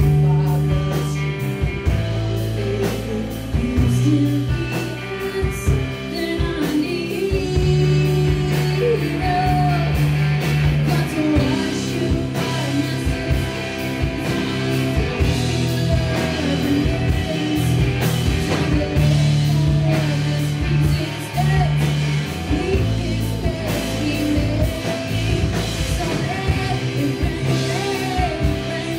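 Live rock band playing electric guitars and a drum kit, with a woman singing the lead vocal.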